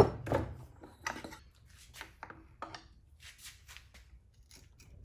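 Steel pry bars clicking and scraping against a Dana 44 differential carrier and housing as the carrier is levered loose. A series of short metallic knocks and scrapes, loudest at the very start, fainter after about three seconds.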